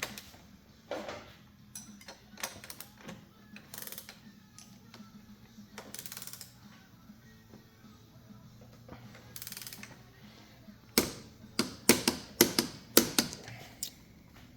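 Ratchet wrench clicking as the motorcycle's front axle nut is run down tight, in short sparse runs at first and then a denser series of clicks near the end.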